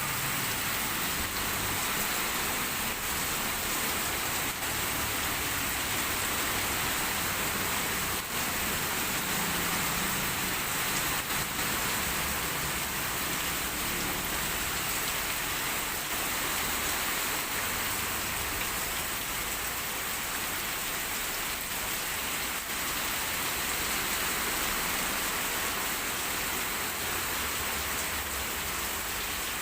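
Heavy rain falling in a steady, even hiss, with scattered individual drop impacts.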